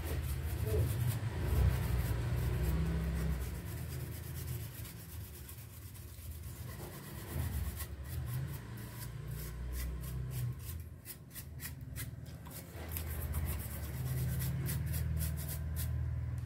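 Rubbing and handling noise with scattered small clicks.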